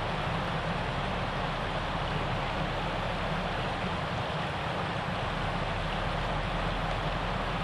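Shallow river water running over and around rocks: a steady, even rushing.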